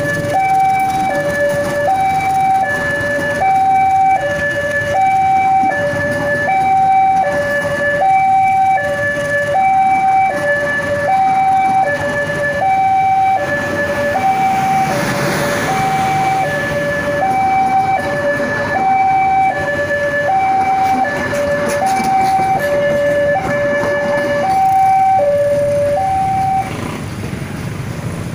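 Railway level-crossing warning alarm from a horn loudspeaker, sounding a loud two-tone electronic high-low signal that alternates about once a second, over the rumble of passenger carriages rolling past. The alarm cuts off near the end as the last carriage clears the crossing.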